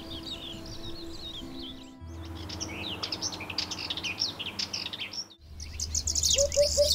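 Wild songbirds singing in a series of short edited clips, with many quick chirps and trills; from about two seconds in, a Sardinian warbler's fast chattering song. Near the end a hoopoe gives its call of three low, hollow notes over the other birdsong.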